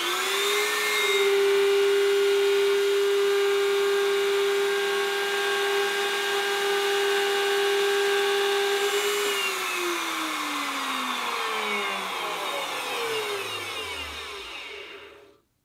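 Bosch table-mounted router spinning up as it is switched on, then running with a steady high whine while a small wooden piece is fed along the flush-trim bit. About nine seconds in it is switched off and winds down in a long falling whine.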